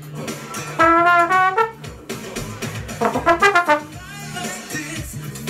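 Trombone playing over a recorded pop backing track with a steady bass line and drum beat. About a second in it plays a run of falling notes, and around three seconds a quick flurry of short notes.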